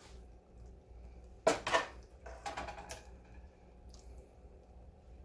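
A spoon clacking against dishes as a thick meat-and-tomato-sauce mixture is spooned out: one sharp clack about one and a half seconds in, then a few softer knocks over the next second and a half.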